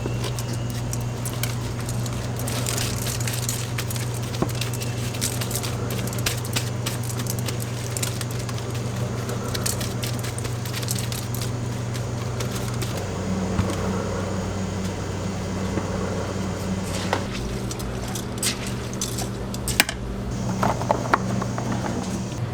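Food-stall work sounds: scattered clicks, small clatters and crackle over a steady low machine hum that changes pitch about halfway through.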